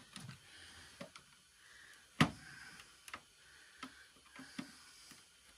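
Small screwdriver prying at the snap tabs of a plastic modem case: scattered light clicks and scrapes of metal on plastic, with one loud sharp click about two seconds in.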